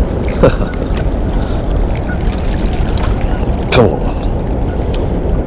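Steady rush of wind on the microphone and moving water below a dam, with two short sharp knocks, one about half a second in and one just before four seconds.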